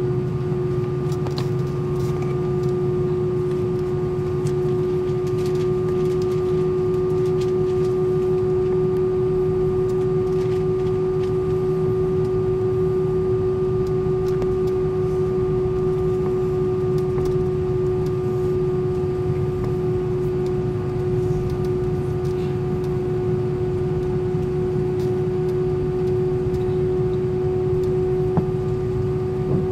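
Cabin noise inside an Airbus A320 taxiing on the ground, its engines at idle: a low rumble with a steady hum that holds one pitch throughout.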